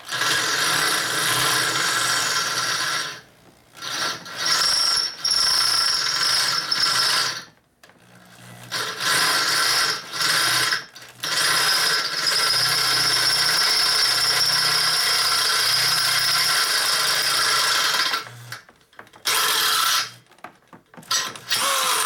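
Corded electric drill boring out a bolt hole in a metal frame bracket with a large bit, run in stop-start bursts of a few seconds each, the longest about six seconds just past the middle.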